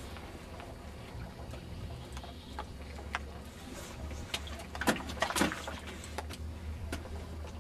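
Fly reel clicking irregularly as a hooked fish is played on a bent fly rod, with a couple of louder clicks about five seconds in, over a low steady rumble.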